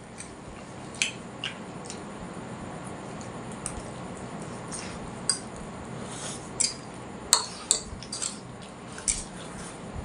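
Plates clinking and scraping while two people eat noodles fast: scattered short, sharp clicks, about a dozen, over a steady low hiss.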